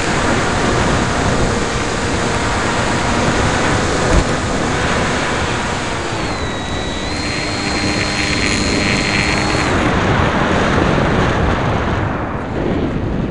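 Strong wind buffeting the microphone of a small EPP foam FPV radio-control plane in flight, with the plane's electric motor and propeller whine underneath. A high whine dips, steps up in pitch about seven seconds in, and fades out near ten seconds.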